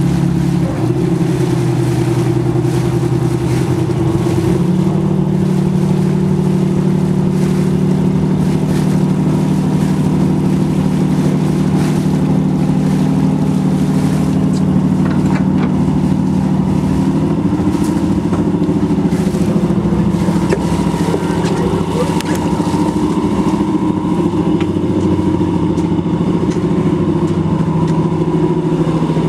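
Boat engine running steadily close by, its pitch stepping up about five seconds in and shifting again around seventeen seconds as the boat manoeuvres.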